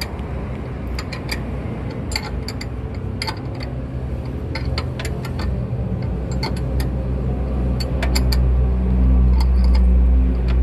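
Scattered sharp clicks and light knocks as a ribbed drive belt is worked by hand onto the engine pulleys of a Suzuki APV Arena, over a steady low mechanical hum that grows louder in the last few seconds.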